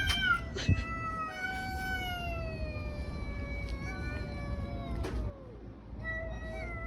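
Cats yowling at each other in a fight standoff: long drawn-out wails that slowly sink in pitch. The wailing breaks off briefly about five seconds in, then starts again.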